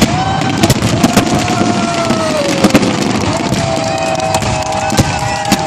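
Fireworks display: a dense run of sharp bangs and crackles over a constant rumbling haze, with a long whistling tone that sinks slightly in pitch through the middle and then holds steady.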